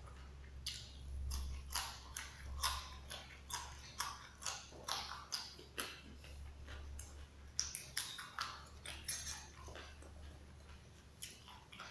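Close-up crunching as a raw yardlong bean (kacang panjang) is bitten and chewed: an irregular run of short, crisp crunches, two or three a second.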